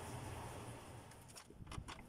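Faint room tone, then a few light clicks in the second half.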